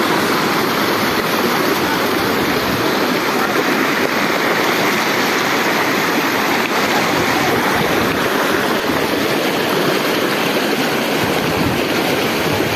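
A swollen, muddy river in flood, rushing steadily and loudly.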